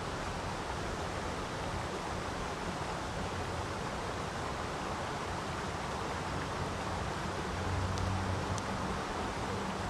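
Steady rush of water running through a low lake dam into the channel below, an even hiss with no pauses. A faint low hum rises briefly about eight seconds in.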